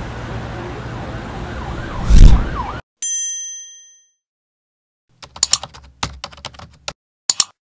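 Street traffic with cars and motorcycles going by, one vehicle passing loudly about two seconds in, cut off abruptly. Then a short bright electronic chime rings out and dies away. After a pause comes a quick run of mouse clicks, and near the end a double click.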